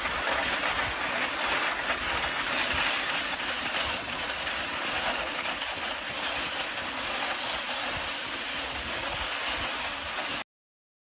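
Running water, a steady rushing hiss as a raccoon plays in it, which cuts off suddenly near the end.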